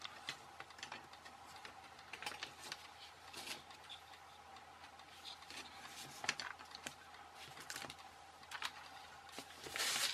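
Small scattered clicks and taps of electronic components and a circuit board being handled on a workbench cutting mat, with a brief rustle near the end. A faint steady tone sits underneath.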